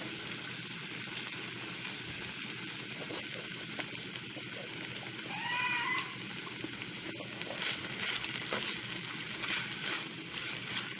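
Sautéed bottle gourd (upo) sizzling in a frying pan, a steady frying hiss, with a few short scrapes of stirring in the second half.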